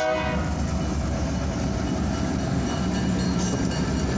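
Freight train passing close by: the diesel locomotive's horn cuts off just after the start. Then comes a steady, loud rumble of the locomotives and rolling freight cars.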